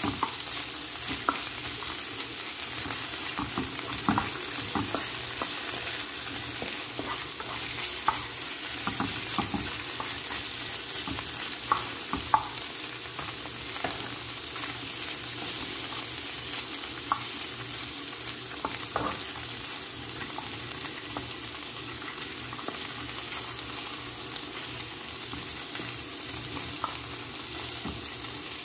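Shrimp and chopped garlic sizzling in butter in a frying pan: a steady hiss with scattered pops. A wooden spatula scrapes and knocks against the pan as they are stirred.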